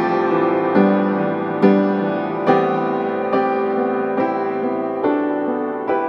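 Background music: slow, soft piano, with a new chord struck about once a second and left to ring.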